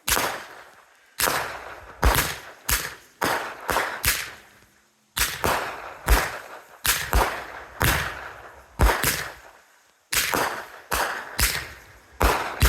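Consumer aerial fireworks going off in a series of sharp bangs, roughly one or two a second, each trailing off, with short lulls about five and ten seconds in.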